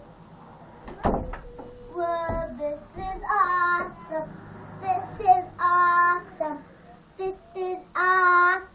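A young child singing in a high voice, in short phrases of held notes. A couple of dull thumps come in the first few seconds, before the singing starts.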